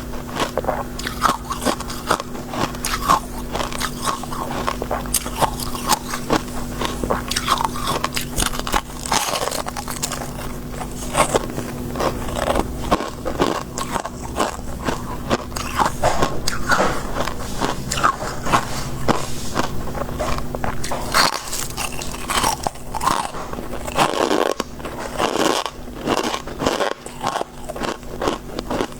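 Close-miked biting and chewing of soft shaved freezer frost ice: dense, irregular crisp crunching and crackling.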